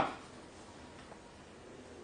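A pause in a man's speech: his voice trails off at the very start, then only faint, steady room hiss.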